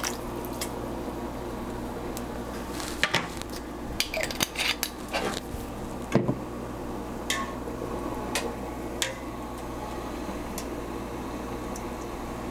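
Kitchen utensils, a plastic measuring spoon and then tongs, clinking and knocking against a stainless steel pot of hot water in a few scattered taps, over a steady low hum.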